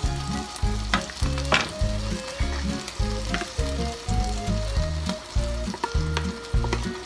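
Tuna steak sizzling in a hot frying pan while sauce is scraped from a plastic container into it, with a few sharp clicks of the spatula against the container. Background music with a steady bass line plays throughout.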